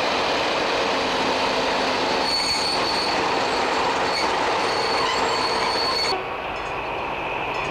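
DB class 215 diesel locomotive running past close by with its train, engine and wheels giving a dense steady rumble with a high wheel squeal coming and going. About six seconds in the sound turns duller as the high squeal drops away.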